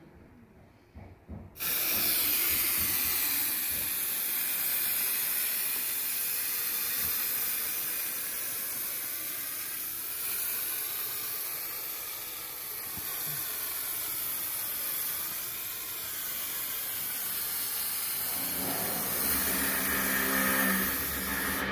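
Aerosol spray adhesive hissing in one long continuous spray as it is applied along a drywall corner to hold a corner bead. It starts about a second and a half in and stops just before the end, with a slowly shifting swish as the can moves.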